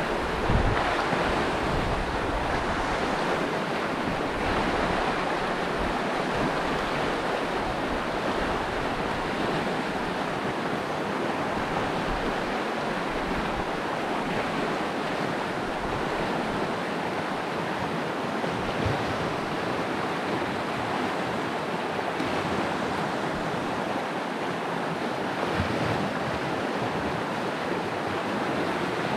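Mountain stream rushing steadily over a shallow, rocky riffle, with a brief low thump about half a second in.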